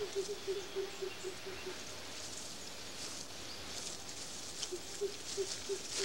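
A lemur feeding among leafy branches: quick rustling and small chewing clicks. Two runs of short, evenly pitched low pulses, a few a second, come near the start and again near the end.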